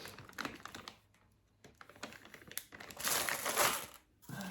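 Plastic bags crinkling as they are handled, with a quiet spell about a second in and the loudest crinkling about three seconds in.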